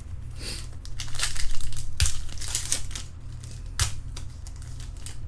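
Baseball trading cards and their packaging being handled: irregular crinkling and rustling, with two sharp clicks about two and four seconds in.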